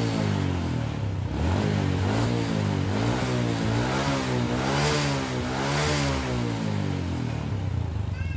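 Honda Supra Fit's single-cylinder four-stroke engine blipped up and down about five times by hand throttle, then settling back to a steady idle near the end. The carburettor has just been cleaned and rebuilt and its idle and air screws set, and the engine revs without stumbling.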